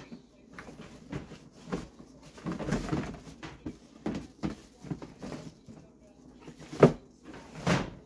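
Black plastic garbage bag rustling and the bin being handled as the kitchen garbage is emptied: a run of crinkles and light knocks, with two louder bumps near the end.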